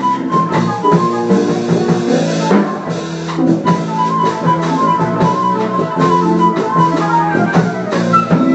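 Jazz music: a melody line over chords with a steady drum beat.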